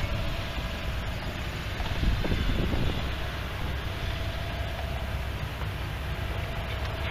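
Tractor engines running at a distance, a steady hum with a thin wavering tone, over a low wind rumble on the microphone. A few faint knocks come about two seconds in.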